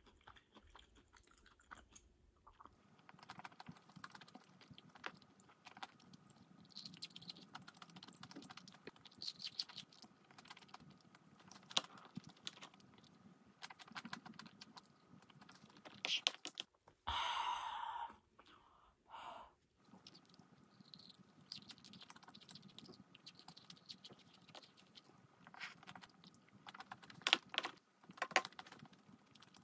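Faint eating sounds: quiet chewing with scattered light clicks and taps, and a brief louder noise a little past halfway.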